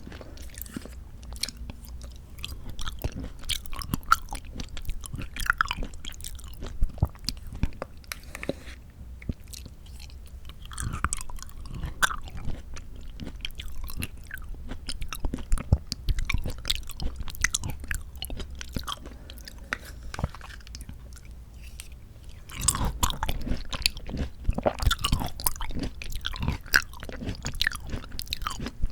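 Close-miked chewing of mandarin orange segments from a fruit cup: many small, sharp mouth clicks and bites, with busier stretches of chewing about eleven seconds in and again near the end.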